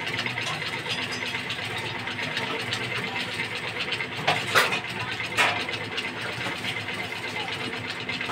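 Chili chicken gravy at a rolling boil in an aluminium pot on a gas stove: steady bubbling with a faint low hum underneath, and a few short clicks about four to five and a half seconds in.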